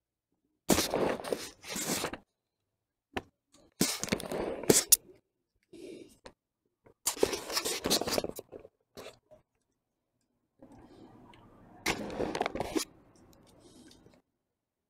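Rustling and scraping handling noise in several short spells, with a few sharp clicks, as an Oculus Rift headset is pulled on and adjusted on the head.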